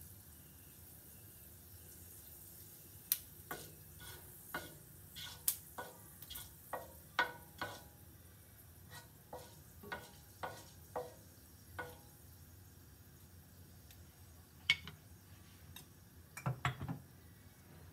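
Fenugreek seeds crackling in hot oil in a frying pan: a faint sizzle with sharp, irregular pops, about one or two a second, thinning out after the middle, and a brief clatter near the end.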